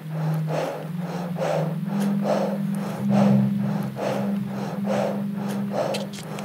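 Fast, rhythmic heavy panting, about two breaths a second, over sustained low music notes that shift in pitch a few times.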